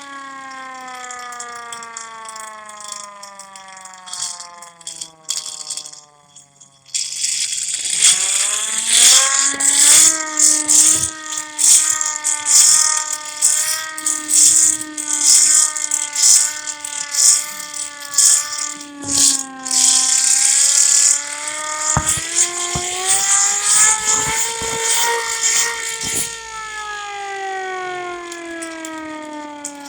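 Siren under test, winding down in pitch for several seconds, then climbing back up to a high held wail about a quarter of the way in, with a brief dip in pitch near the middle and a further rise before it winds down again near the end. A loud rattling noise runs alongside it while it is at full pitch.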